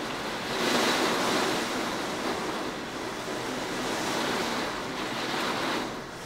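Rushing noise of a severe thunderstorm's wind and rain, swelling about a second in and then holding fairly steady.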